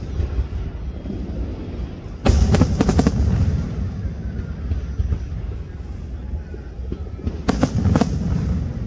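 Fireworks exploding close by: a continuous low rumble of booms, broken by two volleys of sharp crackling bangs, about two seconds in and again near the end.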